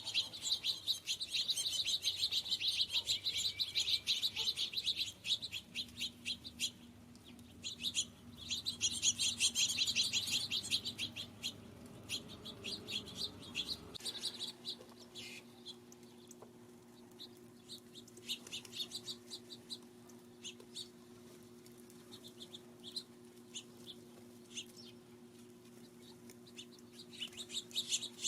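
Small birds chirping in rapid, overlapping bursts, heaviest in the first few seconds and again about eight to eleven seconds in, then thinning to scattered chirps. A faint steady low hum runs underneath.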